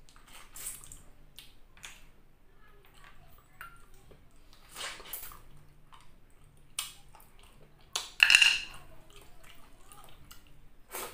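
Cooked sea snails being sucked out of their shells: several short, wet slurps at irregular intervals, the loudest and longest a little after eight seconds in.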